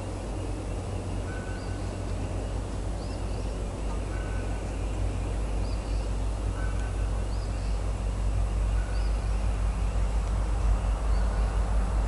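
A low rumble growing steadily louder, with a bird giving short high calls every second or two.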